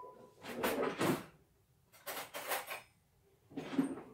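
A kitchen drawer being opened and shut while a fork is taken out: three short rustling, scraping sounds with quiet gaps between them.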